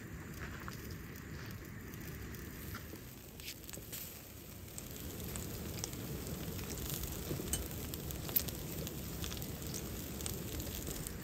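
Vegetables sizzling on a wire grill over charcoal embers, with scattered small crackles and pops from the coals over a low steady rumble.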